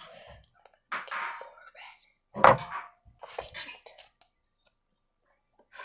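Short bursts of handling noise, with containers and utensils knocking and scraping about three times and a single click near the end.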